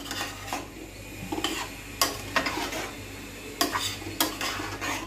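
A metal spatula scraping and knocking against a stainless steel pot while stirring chunks of vegetables in spiced oil, in about eight separate strokes, with a low sizzle underneath.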